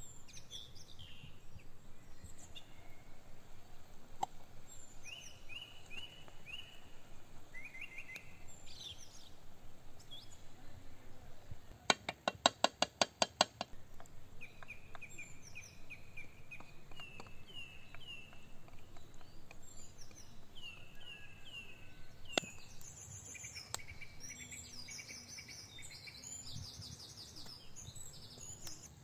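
Birds chirping and singing in repeated short phrases, with a quick run of about a dozen sharp taps around the middle that is the loudest thing, and a few single clicks later on.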